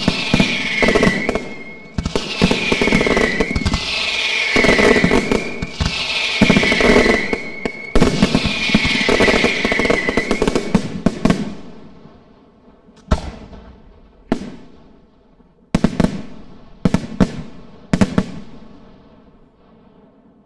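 Aerial firework shells bursting in a dense, continuous barrage, with a high tone that dips in pitch about every two seconds. About eleven seconds in it thins out to single sharp bangs a second or so apart, each trailing off in echo.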